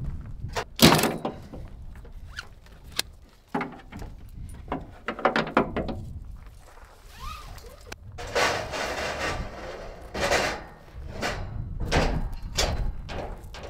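Steel scaffolding frames being unloaded from a pickup bed: irregular metal clanks and knocks as the frames hit each other and the bed, with scraping as they slide out and a short rising squeal about halfway.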